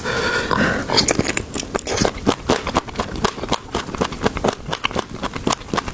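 Close-miked chewing and biting, a quick run of small crisp clicks and smacks, a few each second.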